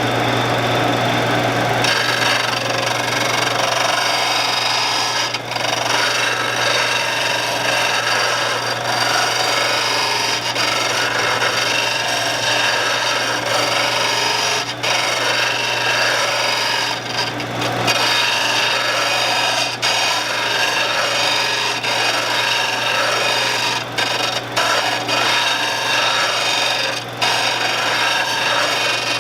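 Shopsmith motor running with a steady hum while a 3/8-inch lathe gouge is ground on its abrasive to cut a new bevel angle. The rasping grind starts about two seconds in and runs on with a few brief breaks.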